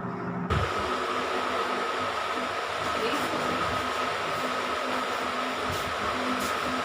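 Steady whirring of a running electric appliance fan, with a thin steady whine above it. About half a second in, a lower hum cuts over to it.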